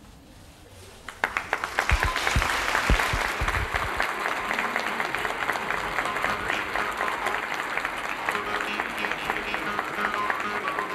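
Theatre audience applauding as the curtain falls at the end of a play: a dense, steady clapping that starts about a second in. A few low thuds come between about two and four seconds in, and music comes in faintly under the applause in the second half.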